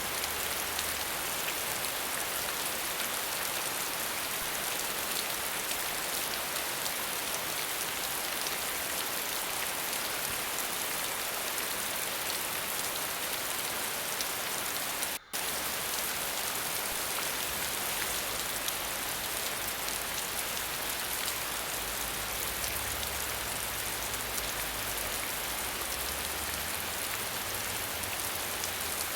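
Steady hiss of falling water, heaviest in the high frequencies, broken once about halfway through by a split-second dropout.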